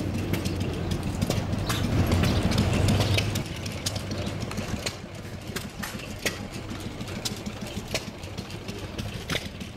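An engine idling steadily. It is louder for the first three seconds or so and then fades down, with scattered sharp clicks over it.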